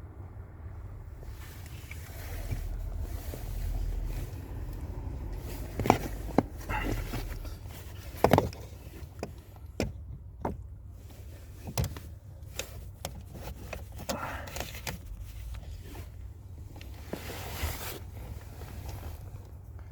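Scattered sharp knocks and clatters over a steady low rumble.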